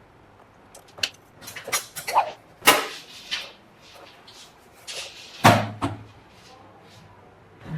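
Clicks, knocks and short scrapes of small hard parts being handled, as when fitting an SSD into an eGPU enclosure. The sharpest knocks come a little under three seconds in and about five and a half seconds in.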